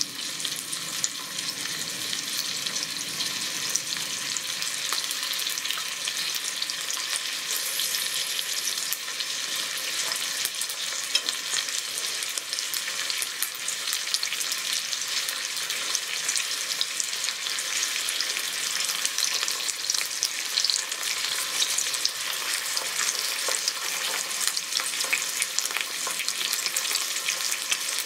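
Yamagata beef steak and cuts sizzling in an electric grill pan: a steady frying hiss full of small crackles.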